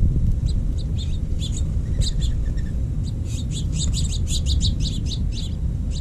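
Small birds chirping: scattered short, high chirps, then a quick run of them from about halfway through. A steady low rumble runs underneath.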